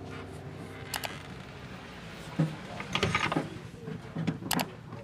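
A few scattered light clicks and knocks of a laser printer's plastic imaging drum unit being handled and turned in the hands, the sharpest about one, two and a half, and four and a half seconds in.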